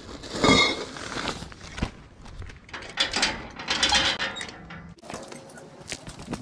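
Metal clinks and rattles in several short, irregular bursts: a scooter's cable lock being handled and a metal gate being unlatched and pushed open.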